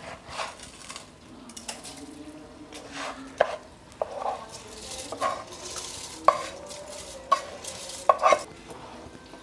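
Washed rice being tipped from a red plastic bowl into a pot of boiling water, with splashing swishes and several sharp knocks of the bowl against the pot, the loudest near the end.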